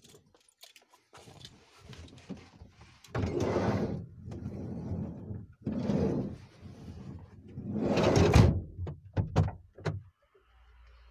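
Clunks, knocks and rustling as the driver's door of a Ford van is opened and someone climbs into the driver's seat. Several louder swells of rustling come in among the knocks.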